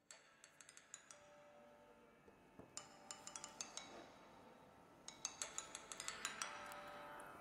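Faint background music made of quick runs of short, ringing struck notes, coming in three bursts: at the start, around the middle and again later.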